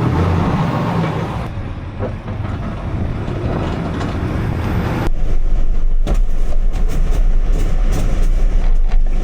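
Truck running, with engine and road noise. About five seconds in the sound changes abruptly to a deeper rumble with scattered clicks and knocks.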